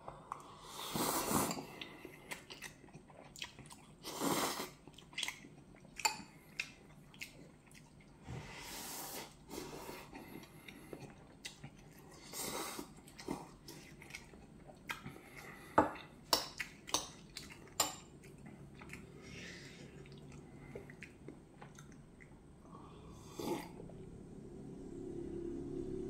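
A person eating instant ramen noodles with a spoon: several slurps, chewing, and sharp clicks of a metal spoon against a ceramic bowl. Near the end, drinking from a cup.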